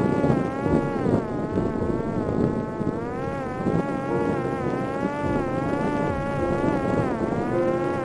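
Electric motor and pusher propeller of a Parrot Disco fixed-wing drone in flight, a steady whine whose pitch keeps rising and falling, with a sharper dip about seven seconds in.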